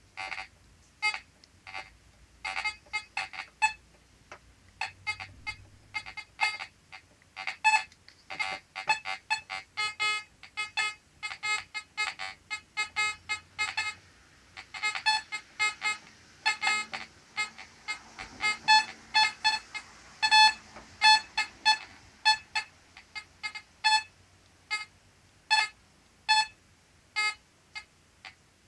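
Fisher F44 metal detector chattering: an irregular stream of short electronic beeps, sometimes in quick runs and sometimes spaced out, with no steady rhythm. These are false signals that the owner puts down to electromagnetic interference.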